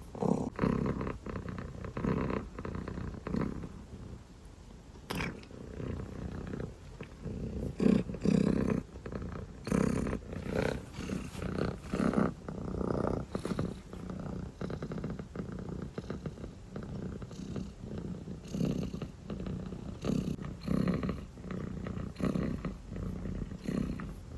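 Dilute calico kitten purring close to the microphone, a steady buzzing rumble that swells and fades with each breath, roughly once a second.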